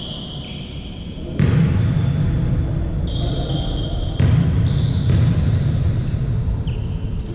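Volleyball being hit in a sports hall: two sharp thumps, about a second and a half in and again past four seconds, each followed by a loud low rumble. Short high sneaker squeaks on the court come in between.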